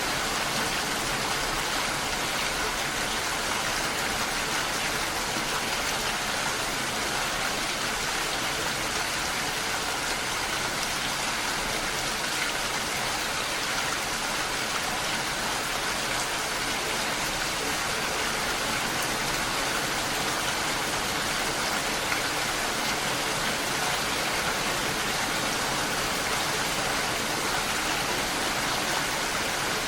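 Steady rain falling on a lake, an even, unbroken hiss of drops on water.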